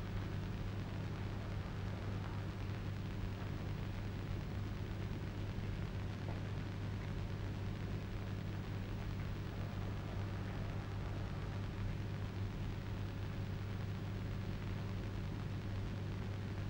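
Steady low hum with an even hiss over it, unchanging throughout: the background noise of an old film soundtrack, with no distinct working sounds standing out.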